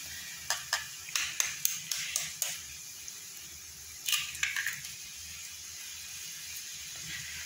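An eggshell being tapped with the blade of a kitchen knife, a quick series of light clicks, then cracked open over the pan a little after four seconds in. Throughout, a faint hiss of onion and grated coconut frying in the pan.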